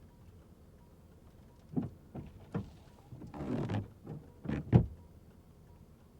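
A handful of sharp knocks and thumps with a short scraping rustle in the middle.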